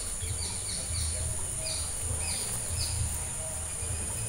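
Outdoor ambience: a steady high-pitched insect drone with small birds giving short, falling chirps over and over, and a low rumble underneath.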